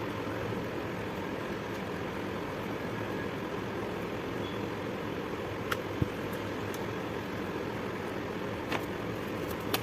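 Steady background hum and hiss, with a few light clicks partway through and near the end.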